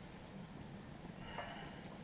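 A pan of chili simmering quietly as a spoon stirs it, with one short scrape a little past halfway.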